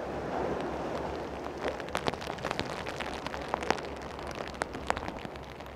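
Steady rain, with individual drops ticking sharply and irregularly close by, more of them from about one and a half seconds in.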